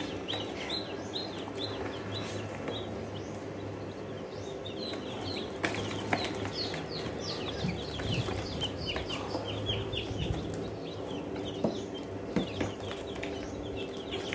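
A box of young chicks peeping continuously, many short high chirps overlapping, with a few light knocks from handling the box.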